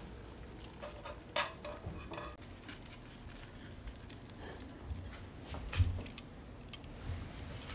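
Faint kitchen handling sounds as a thin egg pancake is rolled up by hand in a nonstick pan and laid on a bamboo cutting board: light scrapes and small clicks, with a short soft knock about three-quarters of the way in.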